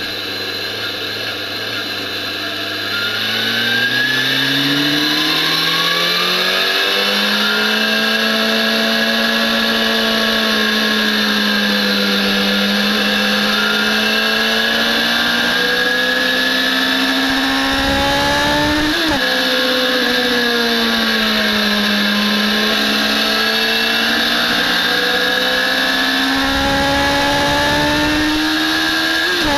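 BMW S1000RR inline-four sport bike engine under track riding. The note climbs steadily over the first several seconds, then rises and falls with the throttle through corners. There are quick sharp breaks in pitch about two-thirds of the way through and again at the end.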